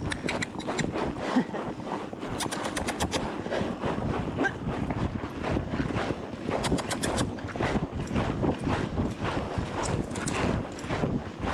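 Hoofbeats of a horse under saddle going hard along the trail, an irregular run of strikes with bursts of quick jingling ticks, over wind buffeting the microphone.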